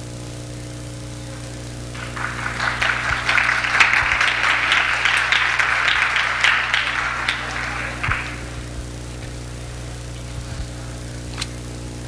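Audience applauding, starting about two seconds in, lasting about six seconds and dying away, over a steady mains hum.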